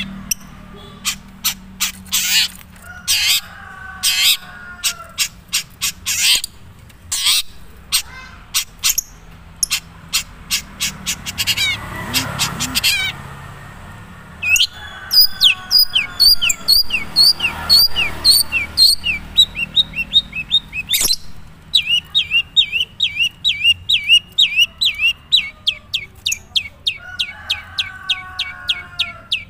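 Madura long-tailed shrike (cendet) singing its own natural song, still carrying little mimicry of other birds: harsh, sharp notes, with fast runs of about three short notes a second in the second half.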